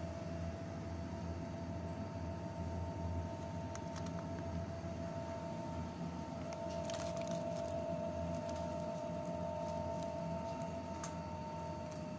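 Steady supermarket hum from open refrigerated display cases: a low drone with two steady higher tones held throughout, with a few light clicks and rattles around four, seven and eleven seconds in.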